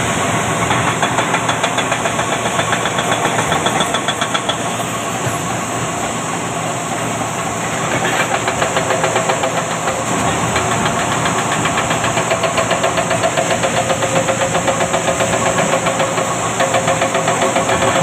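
Heavy diesel engines of tracked earthmoving machines, a crawler bulldozer and excavators, running under load with a fast, even throbbing pulse. The pulsing eases off around the fifth second and comes back strongly about eight seconds in.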